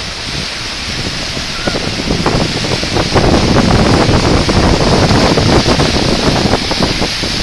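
Rapids of the Niagara River at the brink of Niagara Falls, a steady rushing roar of water. Wind buffets the microphone, loudest from about two seconds in until near the end.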